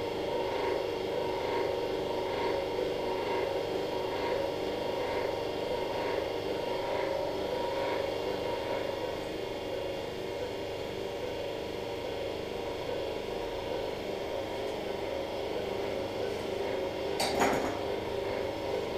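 Steady electrical hum of operating-room equipment, with faint regular beeps about every 0.6 s that die away about halfway through. Near the end comes a single short, sharp knock, the loudest sound.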